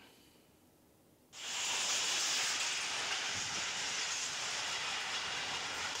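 Strong wind blowing in a storm, a steady rushing hiss that starts about a second and a half in.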